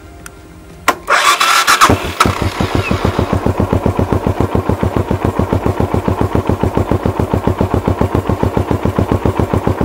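Suzuki Savage 650 single-cylinder four-stroke motorcycle engine being started: a click about a second in, a brief burst of electric-starter cranking, then the engine catches and settles into a steady, evenly pulsing idle. The battery cranks it well, holding above 10 volts: a healthy battery.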